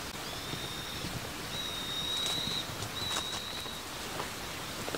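Steady outdoor hiss like light rain, with three high, thin, drawn-out whistled bird notes, each lasting about a second.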